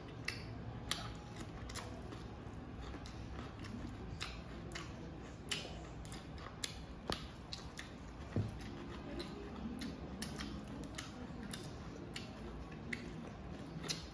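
Close-up eating sounds of two people chewing and smacking their lips over a meal of noodles and curry: irregular wet clicks and smacks, several a second.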